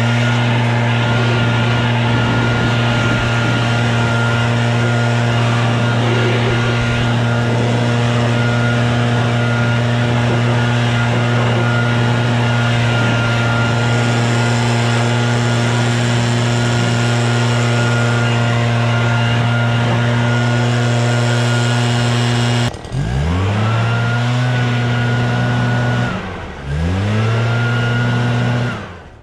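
Woodland Mills HM130MAX bandsaw mill's gasoline engine running steadily at high speed. Twice near the end its pitch drops and climbs back, and then it stops.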